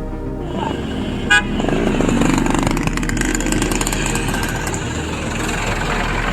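Outdoor street and vehicle noise with a short car-horn toot about a second in.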